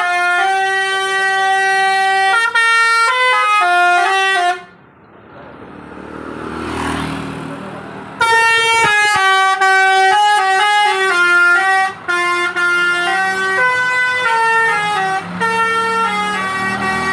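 Multi-tone 'basuri' telolet horn on a tour bus playing a melody of held notes that step from pitch to pitch. It stops for about four seconds while a rush of noise rises and falls, then plays the melody again.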